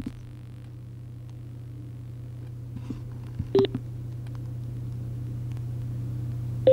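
Sena SMH10R motorcycle intercom heard through its helmet speaker: a steady low hum, with a short electronic beep a little over three seconds in and another at the very end as its control buttons are pressed.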